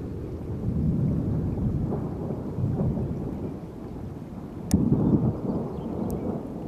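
Low rumbling thunder from a severe thunderstorm, swelling about a second in and again after a sharp click past the middle, with a second faint click near the end.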